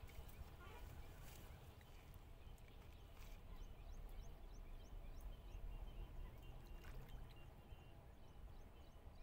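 Near silence at a lakeshore: a faint low wind rumble on the microphone, with faint high chirps repeating a few times a second from about halfway through.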